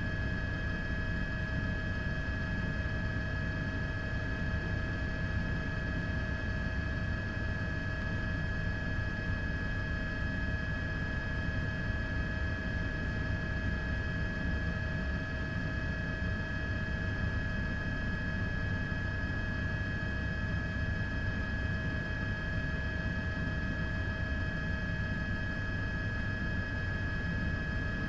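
Steady drone of an aircraft in flight: a constant low rumble with several unchanging high-pitched whines over it, with no change in pitch or level.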